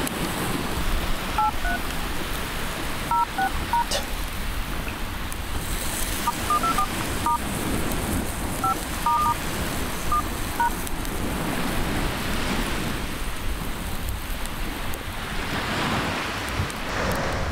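Touch-tone phone keypad beeps, several short groups of key presses during the first ten seconds or so, over a steady rushing background noise.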